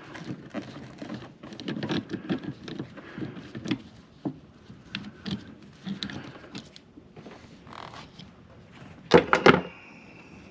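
Light clicks, taps and rustling of hand tools and removed wiper-arm parts being handled, with a louder burst of clattering knocks a little after nine seconds in.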